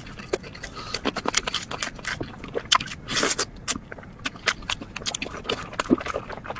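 A person eating: chewing and wet mouth smacks, many short sharp clicks in irregular succession, with a longer noisier stretch about three seconds in.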